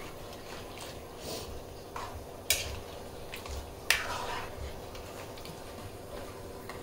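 Metal spoon stirring onions and capsicum in sauce in a wok, with a few sharp clinks of the spoon against the pan, the loudest about two and a half and four seconds in.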